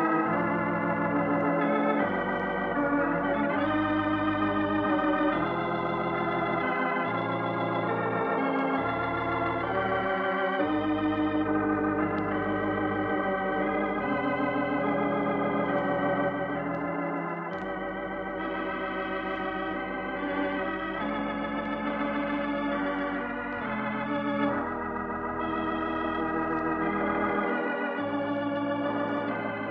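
Organ music: slow sustained chords with a slight vibrato over bass notes that change every second or two.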